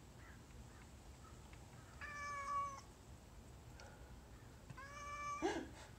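Hairless cat meowing: two long, level meows a couple of seconds apart, the second running straight into a short, louder cry that slides in pitch.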